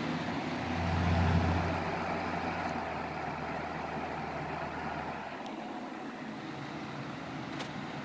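Ultra Breeze box fan running with a steady rush of air. With the microphone up close to the grille, a low hum swells about a second in and fades out by about five seconds.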